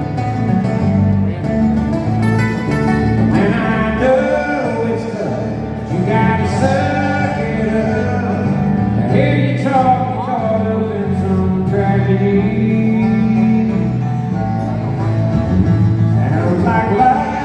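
A country band playing live, with a man singing over acoustic guitars and a steady bass.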